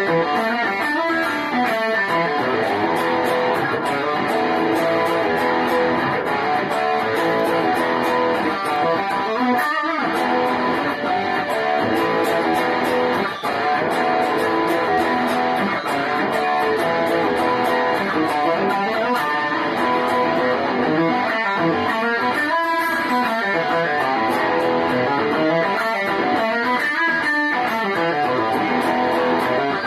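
Peavey HP Signature Series goldtop electric guitar played through a Boss Katana 50 amp, a continuous run of southern rock playing.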